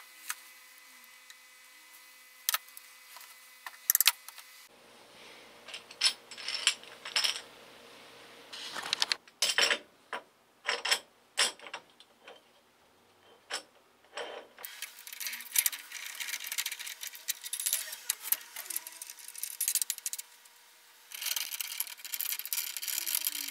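Steel tools and pump parts clinking and knocking: a bearing separator and puller being fitted around the shaft bearing of a rotary vane pump's rotor, with single sharp taps and, in the later part, a dense run of small metal clatter.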